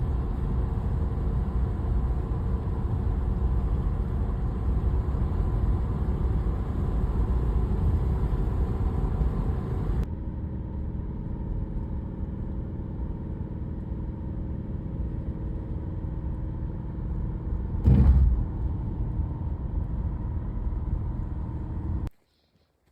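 Car driving on the road: a steady low rumble of engine and tyres. The sound changes in tone about ten seconds in, there is a brief loud noise about eighteen seconds in, and it cuts off abruptly just before the end.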